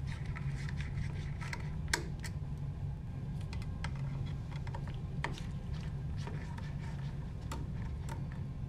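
Small Phillips screwdriver backing out the screws that hold an inkjet print engine in its plastic printhead housing: scattered light clicks and ticks, with one sharper click about two seconds in, over a steady low hum.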